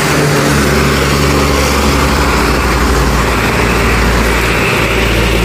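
Intercity coach passing close by on a rain-soaked road: its engine running low and its tyres hissing through the water, with heavy rain throughout. From about three and a half seconds in, the hiss grows brighter as another coach comes up through the spray.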